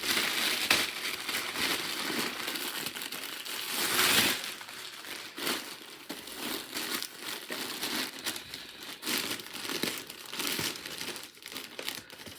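Crinkling and rustling of a shopping bag and its wrapping being handled and opened to take out newly bought clothes, loudest about four seconds in.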